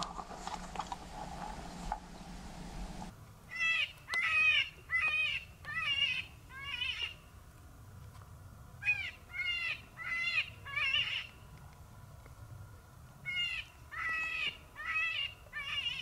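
Electronic predator caller playing a prey distress call: raspy, wailing cries of about half a second each, repeated in three groups of four or five with short pauses between groups.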